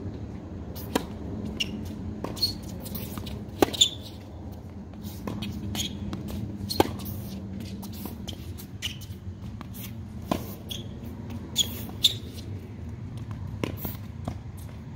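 Tennis serve and rally on a hard court: a serve struck about a second in, then a string of sharp racket hits and ball bounces at irregular intervals, some loud and close, others faint, over a steady low background noise.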